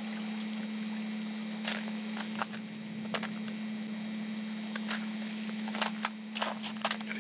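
A steady low hum runs under a scatter of short crunches and clicks, which come more often near the end. These fit footsteps in deep snow or handling of the camcorder.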